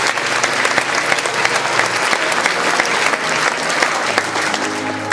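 Large audience applauding, a dense even clapping, with music coming in quietly near the end.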